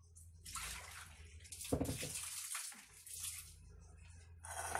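Water running and splashing in a sink in two or three spells, with a knock a little under two seconds in.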